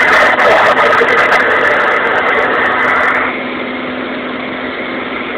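Light aircraft's piston engine and propeller heard from inside the cabin in flight: a loud, steady drone with a constant low hum. About three seconds in it becomes quieter and duller.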